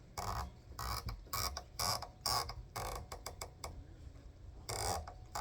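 Rifle scope elevation turret being turned: irregular runs of short ratcheting clicks as the elevation is wound back to zero and raised to correct shots landing low.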